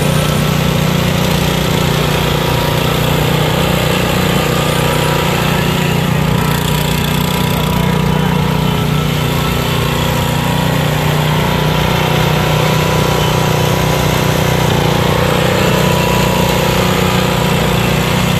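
DR pro walk-behind brush mower with a 26-inch cutting deck, its small gasoline engine running loud and steady as the mower is driven.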